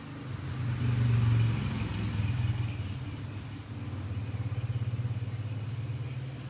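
Engine of a passing motor vehicle, a low rumble that swells about a second in, eases, then swells and pulses again before fading near the end.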